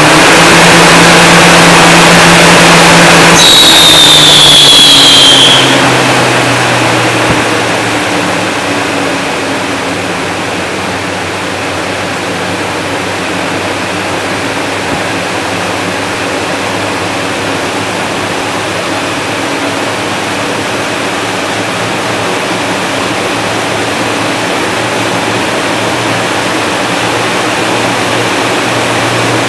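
Haas CNC lathe turning a bicycle front hub: the spindle running with the tool cutting. It is loudest for the first five seconds or so, with a high squeal falling in pitch about four to five seconds in as the running hum drops a little. It then settles into a quieter, steady running sound.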